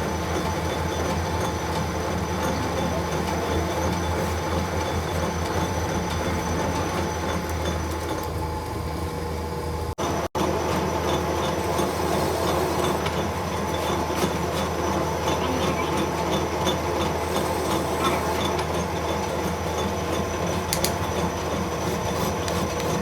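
Lathe running steadily while machining a gear shaft: a constant mechanical hum with higher whining tones, briefly cut off about ten seconds in.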